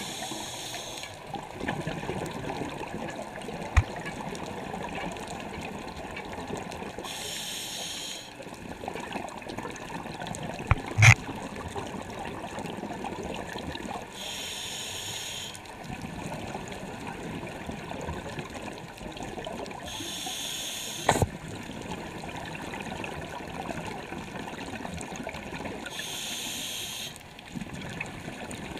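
Underwater scuba breathing through a regulator: a hiss of exhaled bubbles rises about every six seconds, with a low rumbling wash of water between breaths. A few sharp clicks stand out, the loudest about eleven and twenty-one seconds in.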